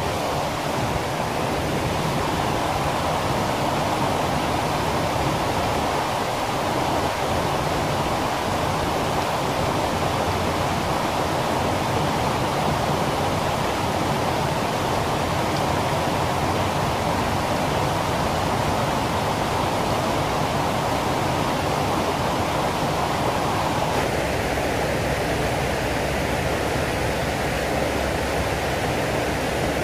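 Steady rushing of water flowing through a concrete irrigation canal, with a small inflow splashing in from the bank. The sound shifts slightly about three-quarters of the way through.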